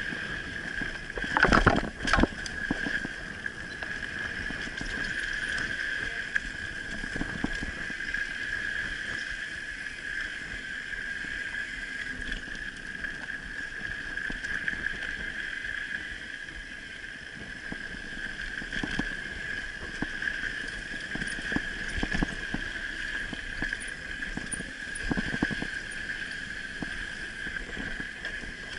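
Mountain bike riding along a dirt trail: tyre rumble and frame rattle, with a burst of loud knocks from bumps about a second and a half in and more scattered knocks later. A steady high-pitched whine runs underneath.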